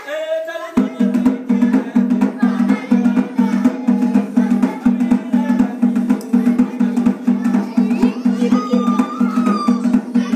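A drum beaten in a steady rhythm, about two to three beats a second, starting about a second in, with children's voices singing faintly over it.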